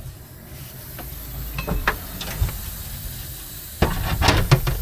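Small metal clicks and rattles from a stainless rivet and washer being fitted into a heater mounting bracket and the rivet gun being set on them, with a quicker run of sharp clicks near the end.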